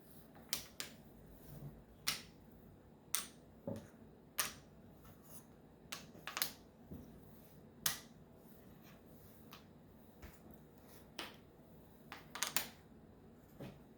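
Map puzzle pieces being handled and pressed into place: sharp, short clicks and taps at irregular intervals, with a quick cluster of clicks near the end.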